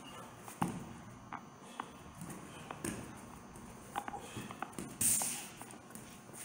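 Bare feet shuffling and tapping on a foam training mat during shadowboxing, in scattered light taps. About five seconds in comes a short, sharp hiss, the loudest sound.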